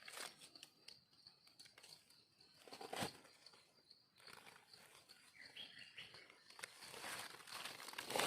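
Dry leaf litter rustling and crackling as it is stepped on and pushed aside, with scattered snaps. The loudest crackles come about three seconds in and at the very end.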